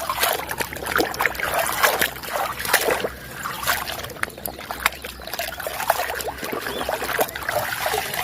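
Hand-washing a muddy plastic toy: water trickling, with many irregular clicks and knocks as the toy is handled and scrubbed.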